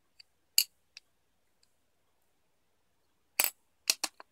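Two-piece aluminium parade belt buckle being handled, giving short sharp metallic clicks: one loud click about half a second in, then a quick cluster of clicks and knocks near the end.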